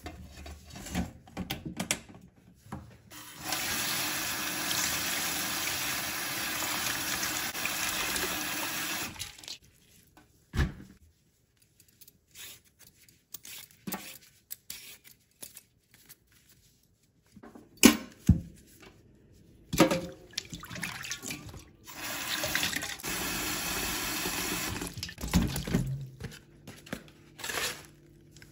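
Kitchen tap running into a stainless steel sink, twice: once for about six seconds early on and again for about four seconds near the end. In between come short knocks and clinks of a metal bowl and produce being handled at the sink.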